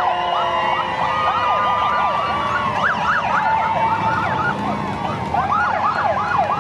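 Several police escort sirens sounding at once from passing police motorcycles: fast rising-and-falling yelps over steadier wails. The yelps thicken about two seconds in and again near the end.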